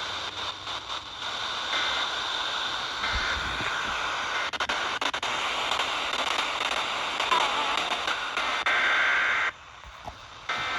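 Radio static: a steady hiss with crackles and a few clicks, briefly dropping out near the end.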